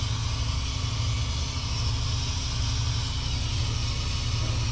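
An engine idling steadily, a low even hum with no change in speed.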